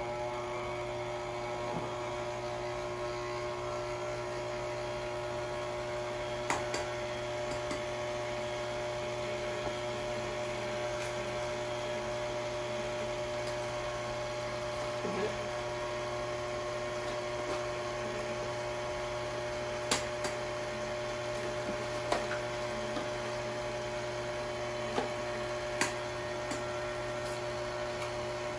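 A steady electrical hum, with a few short sharp taps of eggs being cracked against a stainless steel mixing bowl.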